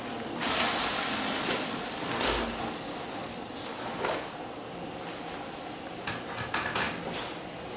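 A whole head of cabbage being put into a pot of hot water on the stove: a noisy scrape lasting about two seconds, then a few light knocks and clicks of handling.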